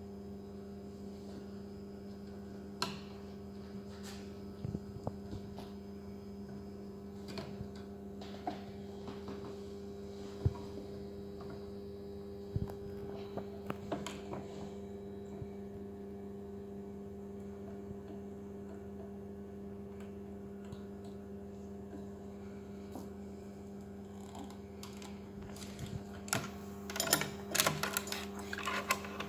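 Electric motor of a chainsaw-chain sharpening machine humming steadily, with scattered light metallic clicks and, near the end, a quick flurry of sharper clicks and scraping.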